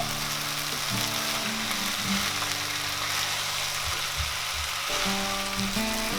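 Spiced lemon rice frying and sizzling in a hot pan, a steady hiss, with background music playing.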